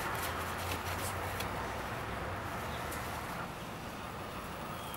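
Steady outdoor background noise, a low rumble with hiss, easing slightly about three seconds in, with a few faint clicks in the first second and a half.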